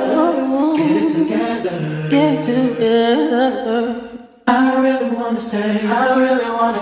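Several voices singing together a cappella in harmony, with no instruments. The singing fades out about four seconds in and starts again a moment later.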